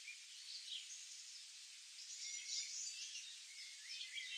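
Faint birdsong ambience: several small birds chirping and twittering over a steady hiss.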